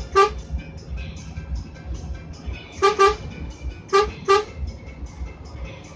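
Short toots of a vehicle horn: one just after the start, then two pairs of quick blasts about three and four seconds in, over a steady low engine rumble.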